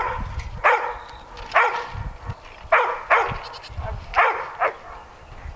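Farm animals calling over and over: about seven short, pitched calls, each falling in pitch and some coming in quick pairs.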